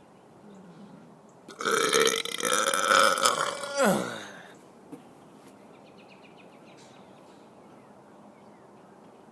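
A man burps once, long and loud, for about three seconds; the pitch drops as the burp trails off.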